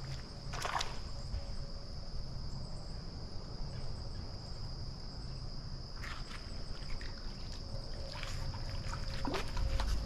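Insects calling in a steady, unbroken high-pitched drone, with a few short rustles and clicks scattered through it.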